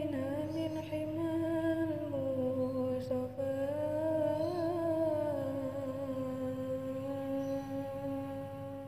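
Devotional nasheed singing: a long drawn-out closing note of the sung line, the melody wavering gently for the first few seconds and then held on one steady pitch that fades out near the end.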